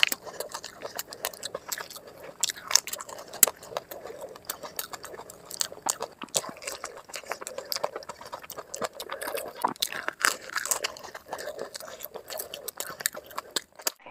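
Close-miked crunching and chewing of pani puri: the crisp, hollow puri shells crack between the teeth in many sharp crunches in quick succession, mixed with wet chewing of the filling.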